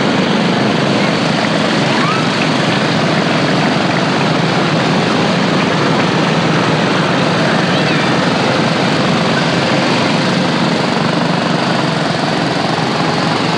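Small engines of a line of miniature motorized cars running steadily as they drive past, making one continuous engine drone.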